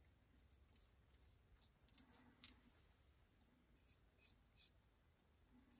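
Faint, short scratchy strokes of a double-edge safety razor with a Gillette Nacet blade scraping through shaving lather and stubble. The loudest stroke comes about two and a half seconds in.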